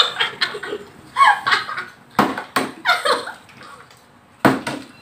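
Plastic water bottle flipped and knocking down onto a glass tabletop: sharp knocks in two quick pairs, about two seconds in and again near the end.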